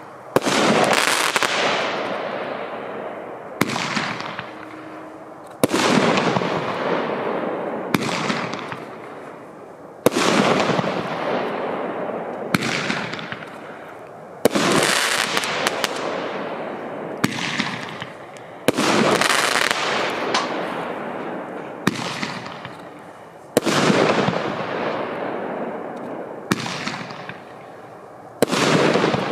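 A 30 mm Roman candle, Piromax PXO314 'No Limits', firing its shots one after another. About every four and a half seconds comes a sharp report with a long fading tail, and a fainter report falls between each pair.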